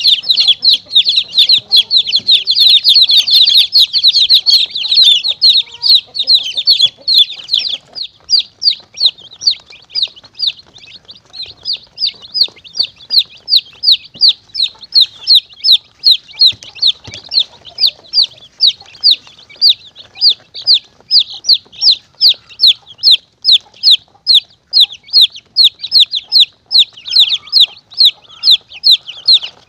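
Baby chicks peeping in high, falling peeps, many overlapping at first, then settling after about eight seconds into a steady series of about two peeps a second: a chick-distress calling recording used to lure monitor lizards and mongooses.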